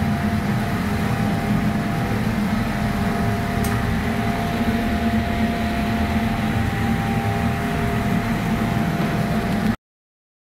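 A steady mechanical drone with a faint whine, like a fan or blower running, stopping suddenly near the end.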